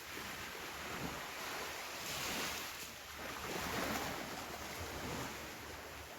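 Ocean waves breaking and washing on a beach, swelling twice, with some wind on the microphone.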